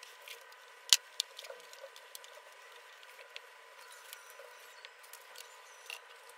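Light clicks and taps from hands handling a 3D printer's frame and its aluminium bed plate, with one sharp click about a second in and another near the end, over a faint steady hum.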